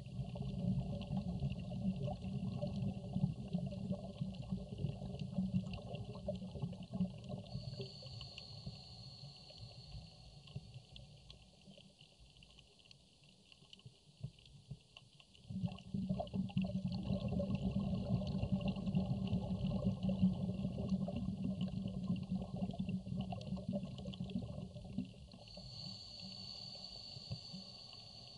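Underwater audio of a scuba diver's exhaled bubbles rumbling in two long bursts, the first fading out about eleven seconds in and the second starting about fifteen seconds in, over a steady fine crackle. A thin high whistle comes in twice, near the tail of each burst.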